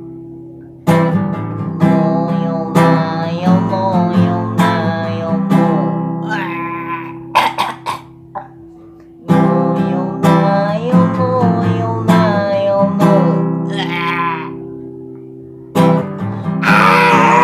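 Acoustic guitar strummed in chords about once a second, with a voice singing a wavering melody over it. Near the middle the strumming stops for about two seconds, leaving only a few quick plucks.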